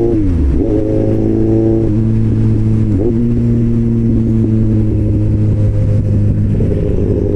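Four-cylinder motorcycle engine through an aftermarket SC-Project-style slip-on exhaust, running under way at steady revs. The pitch drops near the start and again just before two seconds in, dips briefly about three seconds in, then holds steady.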